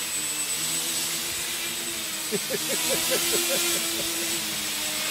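Homemade hexacopter's six electric motors and propellers hovering, a steady buzzing hum over an airy rush. A little past two seconds in the hum wavers quickly up and down in pitch for about a second and a half.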